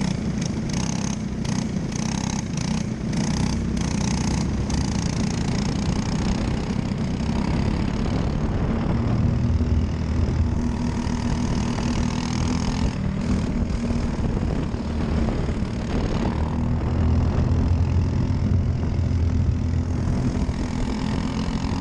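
Briggs & Stratton LO206 single-cylinder four-stroke kart engine running under race load, its pitch changing as it speeds up and slows through the corners.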